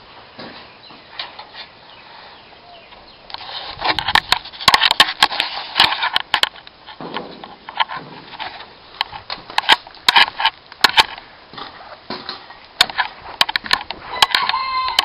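Low, uneven background for about three seconds, then loud, irregular knocks, crackles and rustling as the camera is picked up and carried around: handling noise on the camera's microphone.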